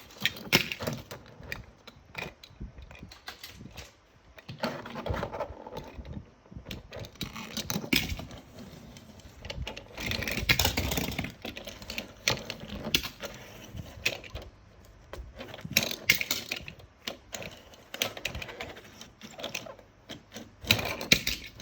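Small metal diecast toy cars clicking and clattering as they knock against each other and hard surfaces, with a few longer rattling stretches.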